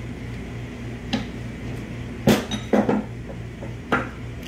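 Steel 6L80 transmission parts, the output ring gear and planetary gear set, clinking and knocking together as they are handled and pulled apart. About five sharp metallic clinks, the loudest a little past two seconds in with a brief ring, over a steady low hum.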